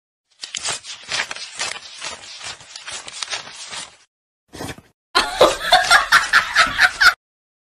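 A person laughing: breathy, wheezing snickers a few times a second, then a louder run of pitched laughter that stops abruptly about two seconds before the end.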